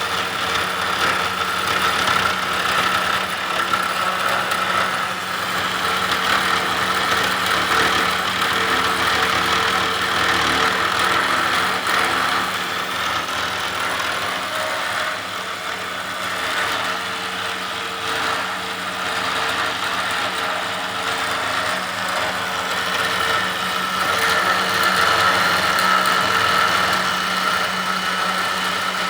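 Multi-tool CNC machine's spindle running an end mill through aluminium: a steady high whine over the noise of the cut, its level easing and swelling a little as the tool moves.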